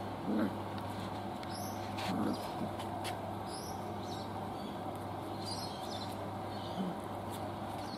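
Six-week-old Old English Sheepdog puppies playing, giving a few short squeaks and grunts over a steady low hum.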